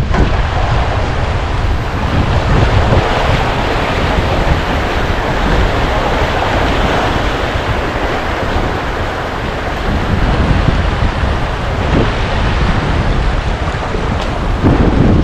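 Wind buffeting the microphone over the steady wash of sea waves, a loud rumbling rush that swells and eases.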